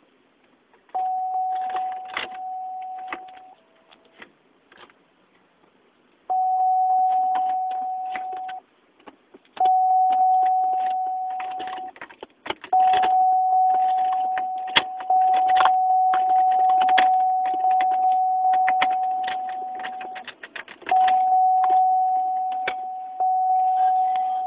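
Electronic warning tone in a 2002 Buick LeSabre, a steady mid-pitched note sounding five times for a few seconds each (once for about seven), fading slowly each time, among many sharp clicks. The car will not crank or start.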